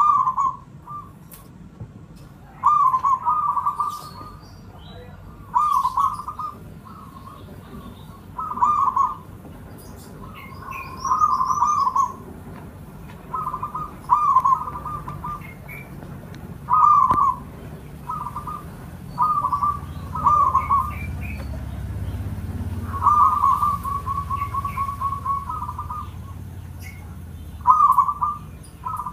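Local Javanese zebra dove (perkutut) cooing: a short phrase of quick cooing notes about every three seconds, with one longer run of rapid notes about two-thirds of the way through. Faint high chirps of small birds sit underneath.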